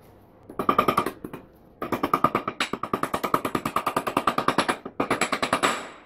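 Rapid light hammer taps, metal on metal, on a polished steel ball-peen hammer head to seat it on its new wooden handle, each tap ringing. They come in three quick runs: a short one, a long one, and a shorter one near the end.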